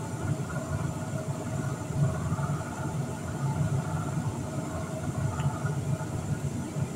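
Steady machine hum with a few faint held tones above it.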